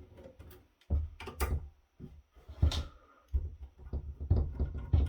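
Screwdriver working the screws out of the metal top plate of a rack-mount mixer, with irregular clicks, scrapes and knocks on the metal case.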